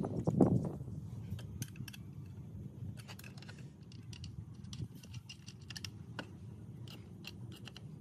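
Small metal parts and hand tools being handled on a workbench: a dull thud about half a second in, then irregular light clicks and taps over a low steady hum.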